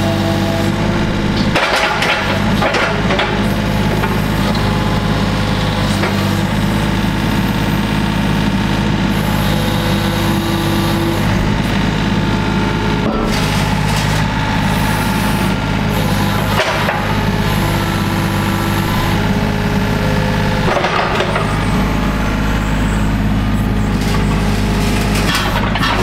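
John Deere 35D mini excavator's diesel engine running steadily under hydraulic load. Its tone shifts several times as the boom, arm and bucket are worked through their full travel, cycling fresh hydraulic oil through the system after an oil and filter change.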